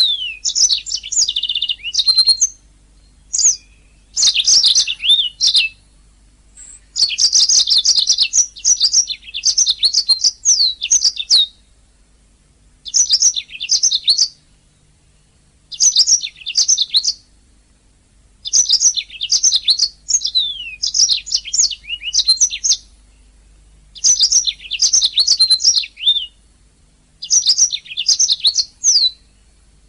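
Domestic canary singing: rapid, high trilling phrases of one to four seconds each, broken by pauses of a second or two.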